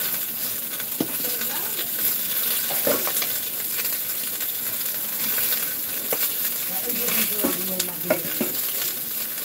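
Food sizzling in a pan as a steady hiss, with a few sharp clicks of a utensil against the pan as it is stirred.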